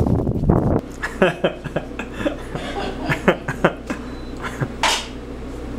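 Footsteps crunching in snow, cut off under a second in. After that, a quieter stretch with a steady low hum, scattered short clicks and brief mouth-like noises.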